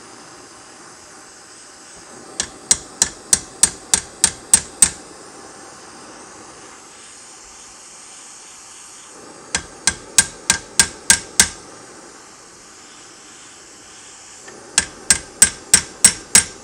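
A hammer striking a torch-heated steel rivet to drive it into a Browning 1919 receiver side plate, in three quick runs of blows about three a second. A gas torch flame hisses steadily throughout.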